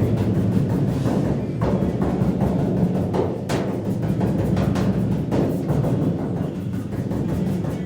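Hammer blows on the sheet-steel roof panel of a 1970 Dodge Challenger, coming at irregular intervals over a steady low hum, as the oil-canned metal is worked back into shape.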